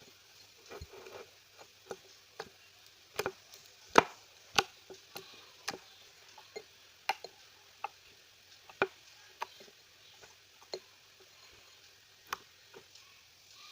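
Irregular sharp clicks and taps, one or two a second, the loudest about four seconds in.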